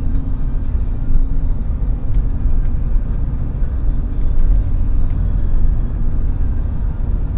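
Steady low rumble of engine and road noise inside the cabin of a moving Opel car.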